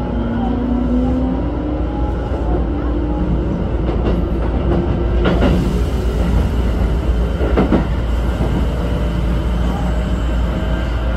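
Keikyu 1500 series electric train pulling away from a station, heard from the cab: a steady rumble of wheels on track with faint motor tones rising in pitch as it speeds up. Three sharp clacks, about four, five and eight seconds in, as the wheels run over points.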